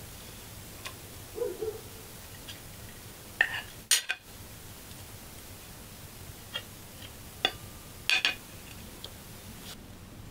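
Metal spoon clinking and scraping against ceramic plates as rice is served: scattered sharp clinks, the loudest about four seconds in and a short cluster about eight seconds in.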